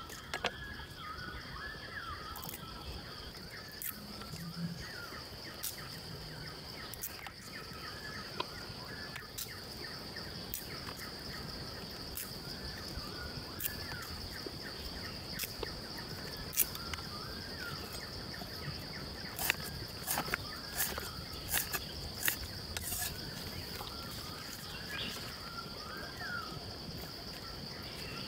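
Forest insects droning steadily at a high pitch, with birds chirping. Scattered sharp clicks and taps come from a cleaver and ingredients being handled on a wooden chopping block, several louder ones in the second half.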